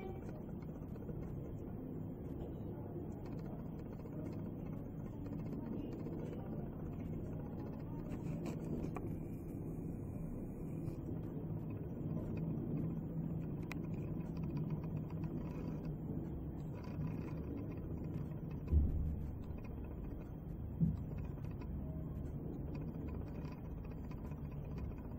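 Steady low hum of a running aquarium's equipment, with two brief thumps about two seconds apart late on.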